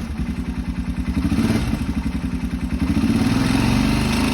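Honda 650 motorcycle engine revved twice above idle, with a clattering mechanical noise that the owner can't place but says can't be good.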